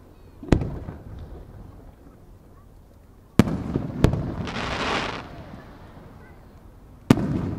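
Aerial firework shells by the Japanese fireworks maker Marugo bursting. There are four sharp bangs, each trailing off in echo: one about half a second in, two in quick succession at about three and a half to four seconds, and one near the end. Just after the middle pair comes a crackling hiss lasting under a second.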